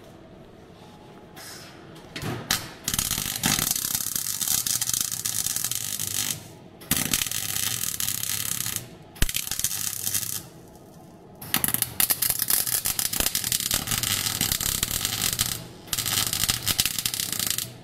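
MIG welder arc crackling as bracing is welded into a car's bare steel shell. The welding comes in about six runs of one to four seconds each, with short pauses between them.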